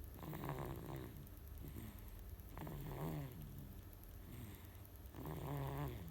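A baby snoring in sleep: three pitched snoring breaths, about two and a half seconds apart.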